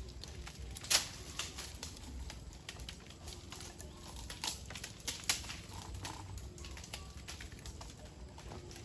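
Irregular sharp clicks and snaps, a dozen or so scattered unevenly, the loudest about a second in, with a dove cooing faintly in the background.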